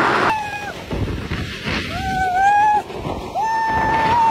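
A man yelling in three drawn-out cries as he rides an inflatable tube down a steep slide, each cry longer than the last, over a steady rush of wind and sliding noise.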